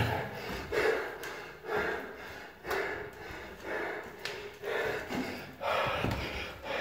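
A man breathing hard from the effort of climbing flight after flight of stairs, heavy gasping breaths coming about once a second. His footsteps land on the stair treads in between.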